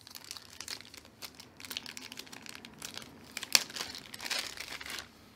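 Plastic packaging crinkling and rustling as small accessories are handled, with one sharp click about two-thirds of the way through.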